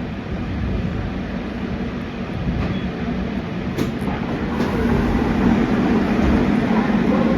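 Gwangju subway train running, heard from inside the passenger car: a steady rumble of wheels and running gear that grows louder through the second half, with a low hum coming up about halfway in.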